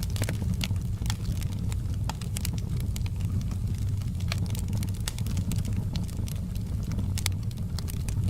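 Fireplace fire crackling: irregular sharp pops and snaps over a steady low rumble.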